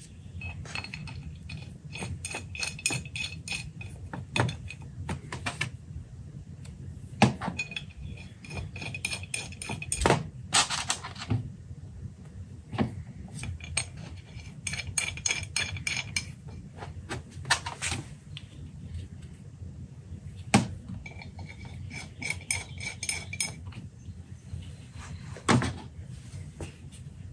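Small steel parts clinking on a steel workbench: studs and nuts picked up and rattled, studs threaded by hand into a steel turbo flange plate, with runs of quick ringing ticks and several sharper knocks as parts are set down.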